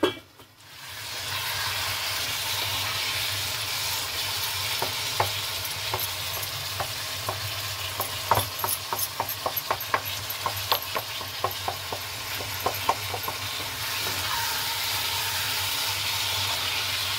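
Pumpkin pieces sizzling with spices in a non-stick kadhai on a low flame while a wooden spatula stirs them. Through the middle the spatula scrapes and knocks against the pan in a run of clicks, and then the steady sizzle goes on alone.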